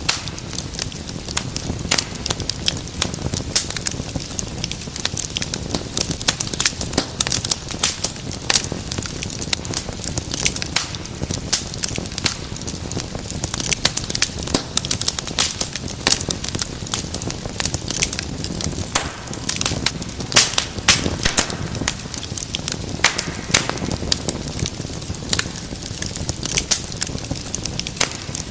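Wood fire burning in a fireplace, crackling continuously with many sharp, irregular pops over a steady low rush of flame.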